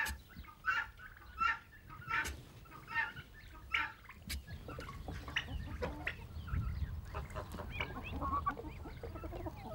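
Domestic fowl calling: short, evenly spaced calls about every three-quarters of a second for the first four seconds. After that comes a busier, irregular clucking from several birds over a low rumble.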